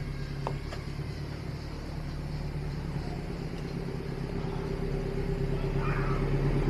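A steady low engine hum, like a motor vehicle running, that grows gradually louder.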